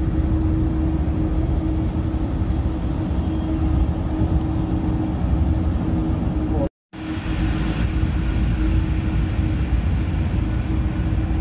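Passenger train carriage running at speed, heard from inside: a steady low rumble of the wheels on the track with a constant hum. The sound drops out completely for a moment about two-thirds of the way through, then resumes.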